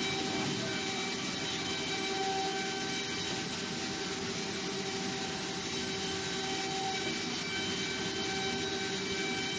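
Automatic inkjet barcode and QR-code printing machine running: a steady mechanical hum and hiss with a constant tone, unchanged throughout.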